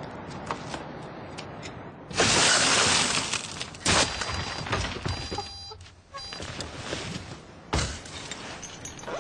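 A car window being smashed: glass shattering loudly for about a second, starting some two seconds in. Sharp knocks follow, one about four seconds in and another near the end.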